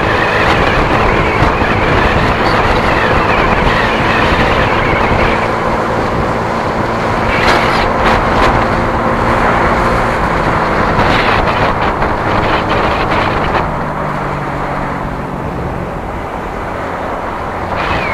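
Engine of the camera vehicle running steadily at highway speed, with wind and road noise on the microphone. About fourteen seconds in, the engine note changes and the level drops a little.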